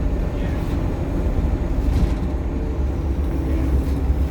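Optare Solo single-deck bus engine running under way, a steady low drone heard from inside the bus.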